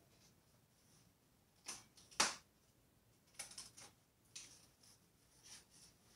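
Faint, scattered rustles and scrapes of packing material and bike parts being handled during unpacking, with one louder clack about two seconds in.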